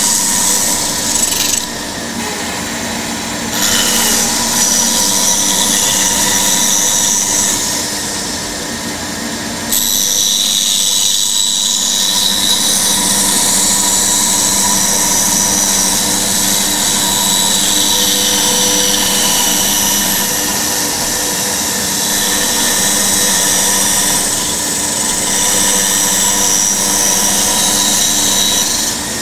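Bandsaw running, its blade cutting a curved shape out of a wooden blank, with a steady motor hum under the hiss of the cut. The cutting noise drops away twice, about two seconds in and again around eight seconds in, while the blade runs free between cuts.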